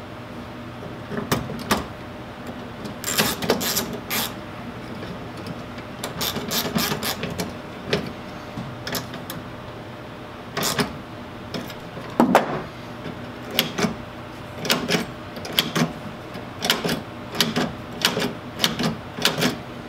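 Irregular clicks, taps and short scrapes of needle-nose pliers and metal latch rods being clipped into the plastic parts of a pickup tailgate latch mechanism, over a steady low hum.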